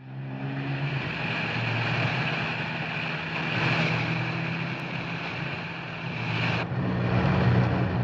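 Car engine running steadily at speed, a constant drone with road and wind rush; the sound shifts abruptly about six and a half seconds in.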